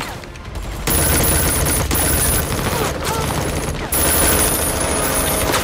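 Automatic gunfire from an action film's soundtrack: a machine gun firing long, rapid strings of shots from about a second in, broken by a few short pauses.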